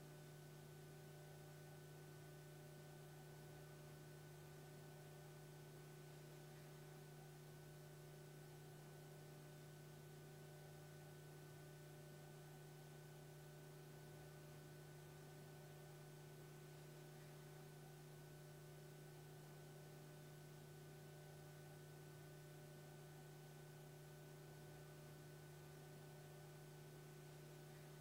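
Near silence: a faint, steady electrical hum made of a few constant tones over low hiss.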